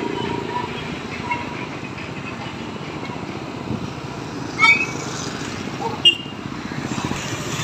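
Motorcycle and scooter traffic on a street: steady engine and road noise, with two brief, loud, sharp sounds about four and a half and six seconds in.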